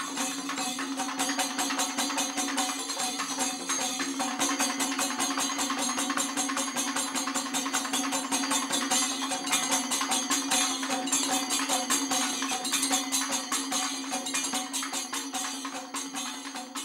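Title music: a steady held drone under a fast, even percussion rhythm.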